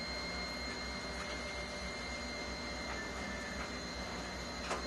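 Diesel locomotives of a grain train running at low speed in the distance: a steady low engine rumble with a faint high whine over it, and a single short click near the end.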